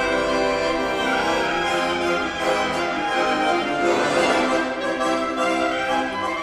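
Accordion and clarinet playing an instrumental duet live, with sustained accordion chords under the clarinet's melody.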